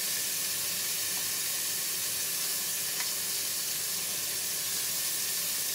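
Seasoned oxtail pieces sizzling steadily in hot oil in a pot as they brown, with one light tick about halfway through.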